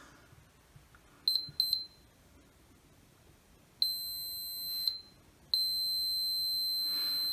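Digital multimeter's continuity beeper sounding as test probes touch the MOSFETs on a cordless saw's motor control board. It gives two short high chirps about a second in, a beep of about a second near four seconds, then a continuous steady tone from about five and a half seconds. The meter reads near zero ohms, the low-resistance reading that marks a shorted part.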